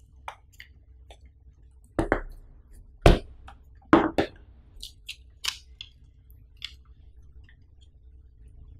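Cardboard smartphone retail box handled on a tabletop: the lid comes off and the box pieces are set down with several sharp knocks about two to four seconds in, the loudest around three seconds in. Lighter paper and cardboard ticks follow as the insert and the SIM-tool card are lifted out.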